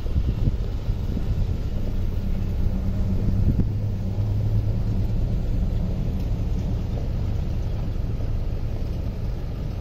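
Pickup truck engine passing slowly. Its steady low hum is strongest a couple of seconds in and fades after about five seconds, over a constant low rumble.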